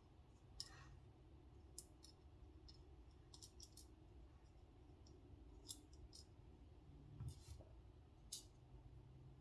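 Faint, irregular small clicks and taps of Benchmade Bugout knife parts being handled and fitted together during reassembly, about a dozen of them, with a small cluster near the middle.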